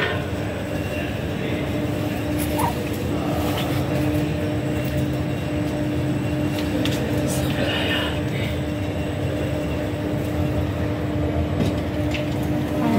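Electric lift in a metro station running, a steady low rumble with a constant hum as the car comes to the landing; a few clicks near the end as its sliding doors start to open.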